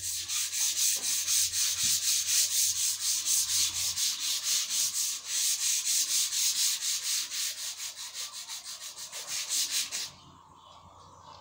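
Hand sanding: sandpaper rasping back and forth across a long flat workpiece in quick, even strokes, stopping about ten seconds in.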